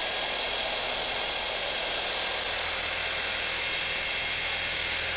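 The small electric motors and two stacked rotors of a hand-held Minion toy helicopter running at speed: a steady high-pitched whine with the whir of the spinning blades.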